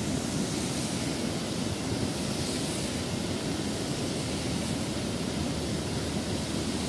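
Steady rush of floodwater pouring over a weir and cascading down its face.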